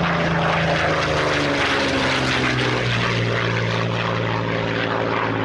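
Propeller aircraft with piston engines passing close by. The engine note drops in pitch over the first couple of seconds as it goes past, then holds steady.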